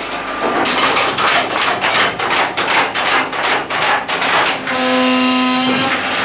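Internal machinery of a 100 mm naval gun mount running: a rapid, even series of metallic clacks, about four a second, for some four seconds. It then gives way to a steady motor hum with a whine.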